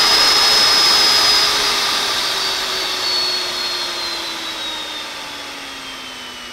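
A Harbor Freight electric die grinder's brushed motor runs free on a homemade dimmer-switch speed control. Its high whine holds for about a second and a half, then falls steadily in pitch and loudness as the speed is dialed down.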